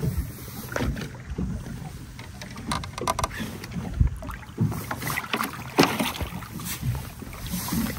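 Hooked zander splashing and thrashing at the water's surface beside the boat as it is brought in, in a series of irregular splashes. The loudest come about five to six seconds in, over water lapping against the hull.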